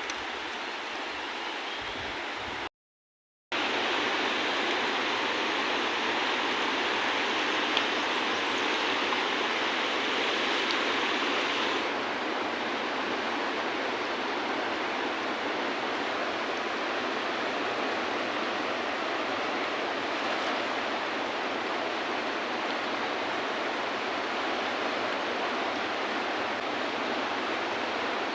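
River water rushing steadily, with a brief cut to silence about three seconds in.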